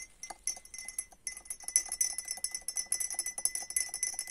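Metal teaspoon stirring tea in a glass, rapid clinks against the glass that leave it ringing; the strokes are sparse at first and pick up to about seven or eight a second after a second or so.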